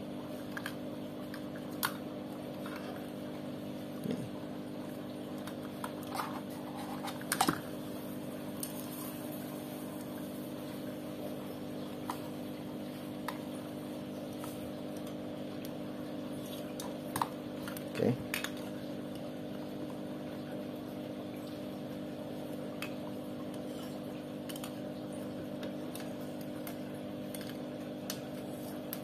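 Cables and plastic plug connectors of an LED strobe light kit being handled and plugged in: a few scattered light clicks and knocks, the loudest about seven and eighteen seconds in. A steady low hum runs underneath throughout.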